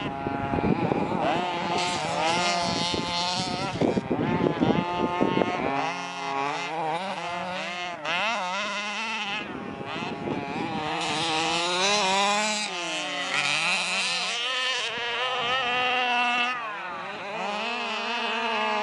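Small engine of a radio-controlled off-road buggy revving hard and easing off over and over as it races, its buzzing pitch rising and falling. A low rumble lies under it for the first six seconds or so.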